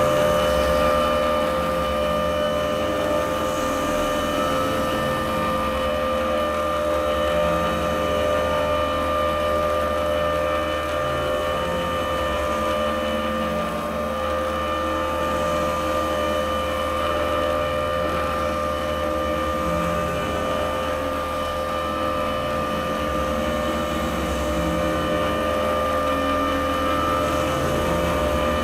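Electronic drone from the piece's score: several steady held tones layered over a low engine-like rumble, with no beat or melody.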